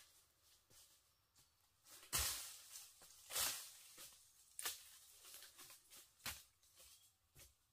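Footsteps crunching through dry bamboo leaf litter: about five short, rustling steps, irregular and roughly a second apart, starting about two seconds in.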